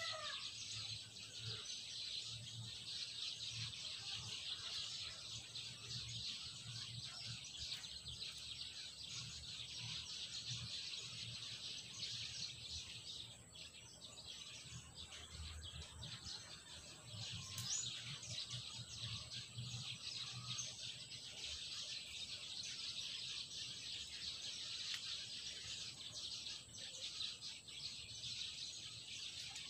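Backyard outdoor ambience: a steady high-pitched hiss with scattered bird chirps, over a faint low hum that comes and goes.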